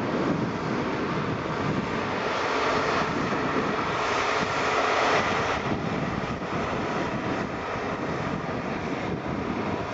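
Jet engine noise from a Boeing 747-8F freighter's four GEnx engines, a steady rushing sound that swells to its loudest about five seconds in and then eases off a little.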